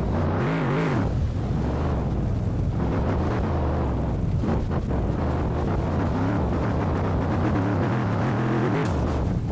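Mercedes G-Wagon engine running under load off-road, its pitch rising and falling with the throttle.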